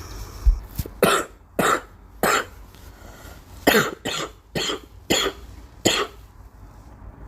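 A girl coughing in two bouts: three sharp coughs about a second apart, a short pause, then about five more in quick succession.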